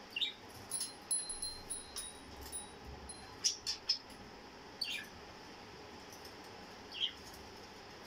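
Pet budgerigars in a cage giving short, high chirps and squeaks at scattered moments, with a few quick sweeping calls: one right at the start, one about five seconds in and one about seven seconds in.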